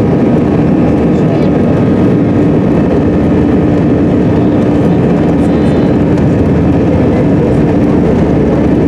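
Steady jet engine noise heard inside the cabin of an Allegiant Air Airbus A320-family airliner rolling on the ground, an even rush with a steady hum through it.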